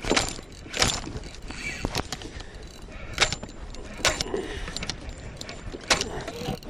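Scattered sharp knocks and clicks on a kayak, about five in all, over a steady haze of wind and water noise.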